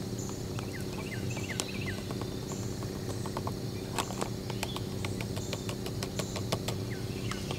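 Spoon stirring rehydrated rice in a foil food pouch: a run of light clicks and scrapes, thickest in the second half. Under it sits a steady low hum, with a bird's short falling chirps and a repeating insect call behind.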